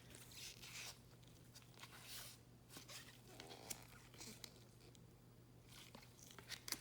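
Faint handling of trading cards: scattered soft slides and clicks as cards are flipped through by hand, over a steady low hum.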